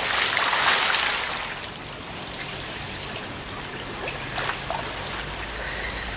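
A person's cannonball jump into a swimming pool: a loud splash in the first second or so, then water sloshing and lapping as the pool settles.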